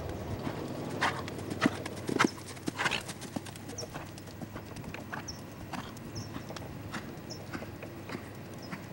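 Hoofbeats of a Lusitano stallion being ridden in an arena. There is a run of louder hoof strikes in the first few seconds, then lighter, regular beats.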